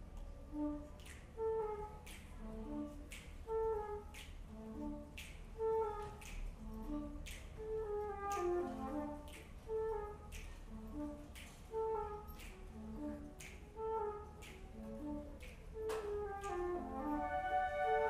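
Flute choir playing: low flutes repeat a short bass figure while sharp clicks keep a steady beat, about one every three-quarters of a second. Near the end higher flutes come in with held notes.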